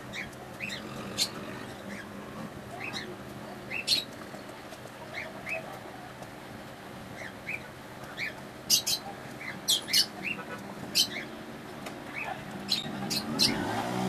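Baby Fischer's lovebird chirping and squawking: short, slightly rising chirps scattered throughout, with sharper, shriller calls coming in quick clusters past the middle and again near the end.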